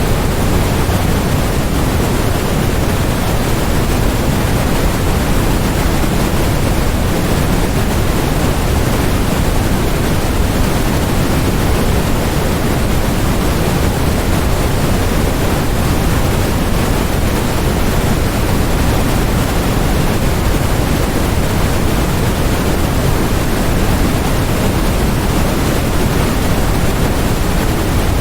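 Steady, unchanging electronically generated noise: an even hiss across the whole range, fuller in the low end.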